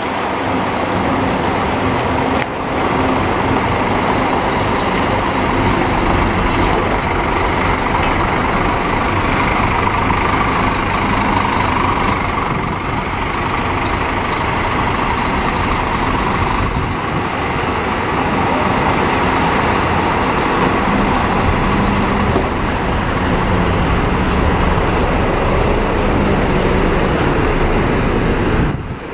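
Diesel engine of a Scania-chassis Neobus New Road N10 coach running steadily as the coach drives slowly down the street.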